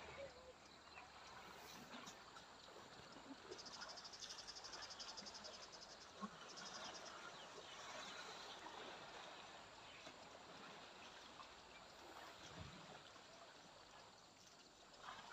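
Near silence: faint outdoor ambience, with an insect's rapid high-pitched trill about three and a half seconds in, and again briefly a few seconds later.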